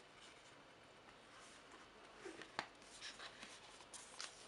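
Faint rustling and soft taps of a paperback book being handled and opened, its cover and first page turning, with one sharp tap about halfway through.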